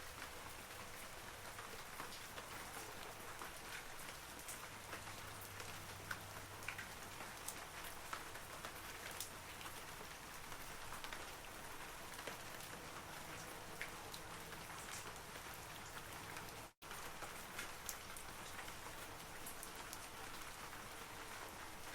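Steady rain falling on forest trees: an even hiss with scattered single drops ticking through it. The sound cuts out for an instant about three-quarters of the way through.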